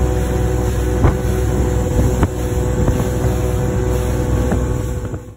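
Boat motor running steadily under way, with a few sharp knocks along the way. The sound cuts off suddenly at the end.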